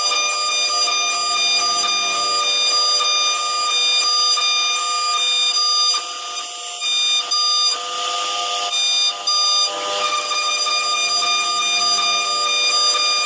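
CNC router spindle at 18,000 rpm driving a single-flute carbide endmill through aluminium plate: a steady, high-pitched, many-toned whine of the cut. The level dips briefly a few times in the second half, with a short rush of hiss.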